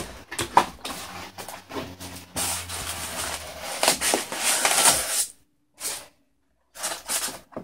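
Handling of a small cardboard box and paper packing as a mug is unboxed: cardboard flaps and paper wrapping rustle and crinkle, with a few sharp clicks. The rustling stops abruptly about five seconds in, and two short rustles follow.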